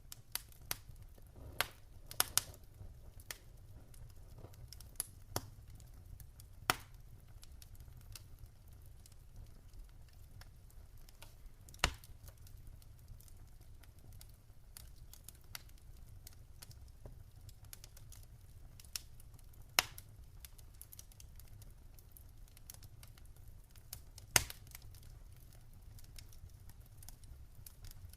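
Campfire wood crackling: scattered sharp pops at irregular intervals over a low steady rumble. A cluster of pops comes in the first seven seconds, then single louder pops follow several seconds apart.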